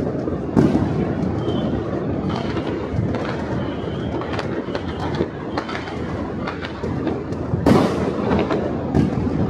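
Many fireworks and firecrackers going off at a distance over a city. A constant rumble of overlapping booms runs under sharper cracks and pops scattered throughout, with the loudest bangs about half a second in and near the end.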